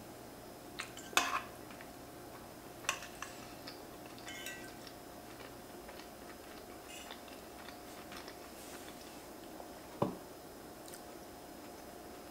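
Close-miked chewing of pasta, with a few sharp clinks of a metal fork against an enamelled pan, the loudest about a second in. Near the end comes a duller knock as the fork is set down in the pan.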